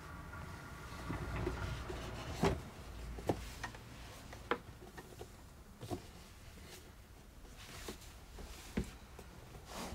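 Things being rummaged through and moved about on a low shelf in a small room: a scattering of light knocks and clicks at uneven intervals over a faint low background.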